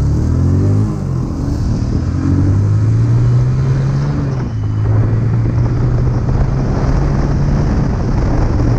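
Motorcycle engine pulling hard as the bike picks up speed, its note rising over the first few seconds and then holding steady, with a rush of wind on the microphone.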